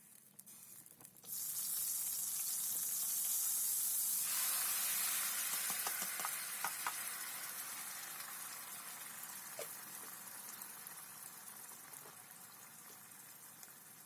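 Food dropped into hot oil in a frying pan, sizzling loudly as it hits and then slowly dying down, with a few light clicks of a utensil against the pan.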